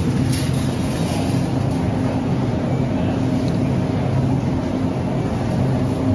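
Steady low hum and rumble of a supermarket's refrigerated produce cases, with a few constant low tones.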